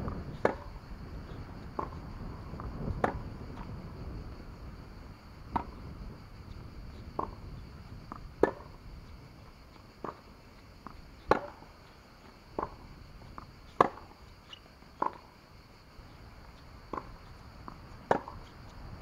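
Tennis ball being struck by rackets and bouncing on a hard court in a baseline rally. Sharp pops come about every second or so, some loud and some fainter.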